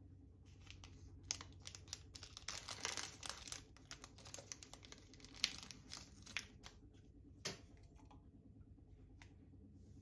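A plastic stick sachet of instant drink powder crinkling and being torn open, a quick run of small crackles and clicks. A single sharper click comes about seven and a half seconds in.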